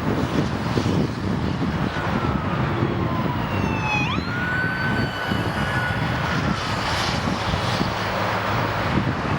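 Wind buffeting the microphone with a steady, loud rumble. Over it a high tone falls slowly, jumps sharply up about four seconds in, holds, then slowly falls away.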